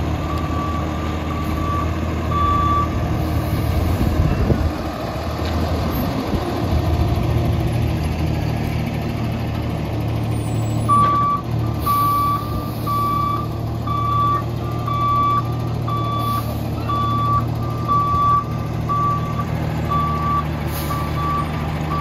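Rear-loader garbage truck's engine running under a steady series of short reversing-alarm beeps. The beeping drops out for several seconds while the engine gets louder, then starts again about halfway through and keeps going.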